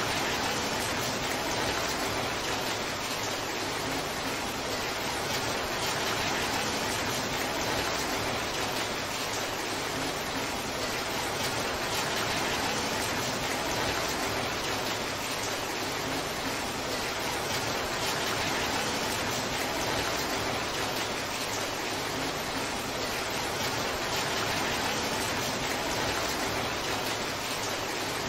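Torrential downpour: heavy rain falling as a steady, even hiss that does not change.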